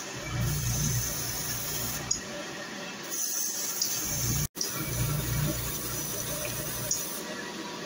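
Airbrush spraying paint onto a small model part, a hiss that stops and starts several times as the trigger is worked. The sound cuts out completely for an instant about halfway through.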